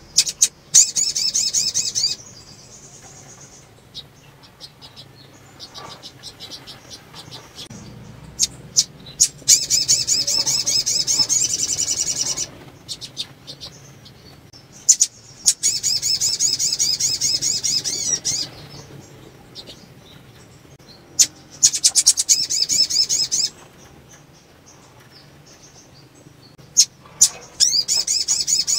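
Female sunbird giving rapid, high twittering calls in five bursts of two to three seconds, with short sharp chips in between. This is the call of a female in breeding condition, used to excite males into singing.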